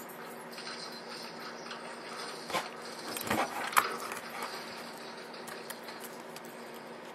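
A few light clicks and knocks from hands handling the taken-apart HP Stream 7 tablet's screen assembly, falling between about two and a half and four seconds in, over a faint steady background.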